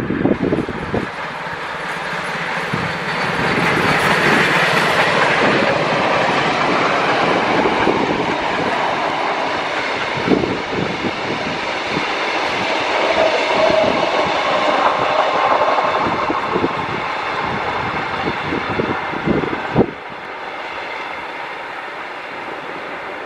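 Steam locomotive and a rake of heritage passenger carriages rolling past, wheels clattering over the rail joints with irregular knocks. The sound drops suddenly to a quieter, steadier rumble about 20 seconds in.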